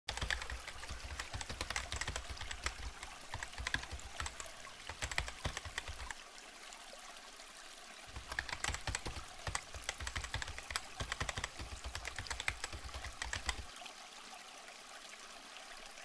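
Typing sound effect: quick, irregular key clicks with soft low thumps, as text is typed out letter by letter. It pauses for about two seconds in the middle and stops a couple of seconds before the end.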